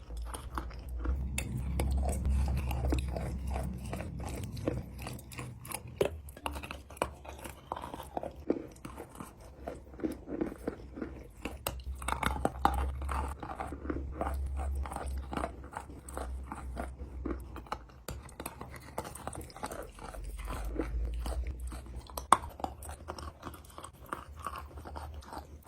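Eating chalk, close-miked: crisp crunching bites and chewing, with many sharp cracks throughout.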